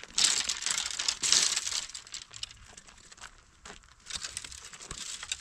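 Dry brushwood branches rustling and crackling as they are pulled from a heap. There is a dense burst of snapping twigs for the first two seconds, then it goes quieter and comes back about four seconds in.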